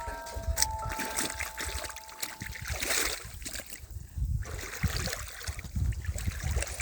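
Canoe paddling: water splashing and trickling around the paddle and hull in uneven strokes, with a low rumble underneath. A few sustained music notes fade out in the first couple of seconds.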